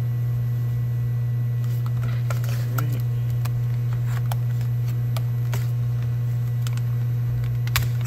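Utility knife cutting and prying at a stiff plastic clamshell package: scattered clicks and crackles over a steady low hum.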